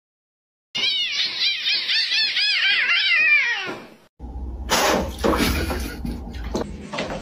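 A cat yowling in a fight standoff: a loud, wavering howl that rises and falls several times a second, then slides down and stops about four seconds in. After it comes a low hum with scattered knocks and scuffs.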